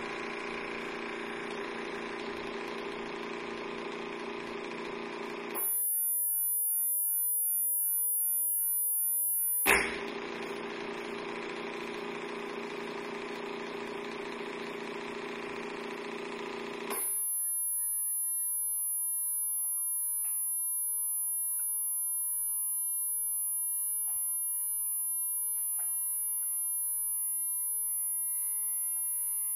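Electronic sine-tone drones played through a vibration speaker under a water-filled glass dish. A dense chord of many steady tones switches abruptly, twice, to very high steady tones with a faint mid tone and slow pitch glides.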